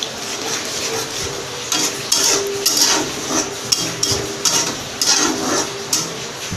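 A spatula stirs and scrapes thick tomato-and-spice masala in a kadai in a run of strokes, about two a second, while the masala fries in oil.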